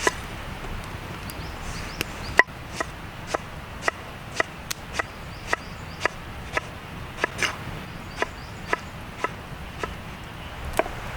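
Knife chopping vegetables: a regular series of sharp strikes, about two a second, beginning about two seconds in and stopping near the end.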